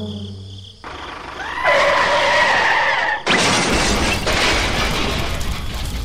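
Edited sound effects: a sliding trombone tune falls and stops within the first second, then a loud shattering crash. About three seconds in a loud, steady rush of fire flames starts suddenly over a deep rumble.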